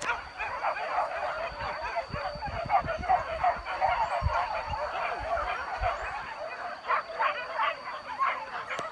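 A pack of boar-hunting dogs barking and yelping together in a dense, continuous chorus, the baying of a pack working on a wild boar. A few low thumps come through in the middle.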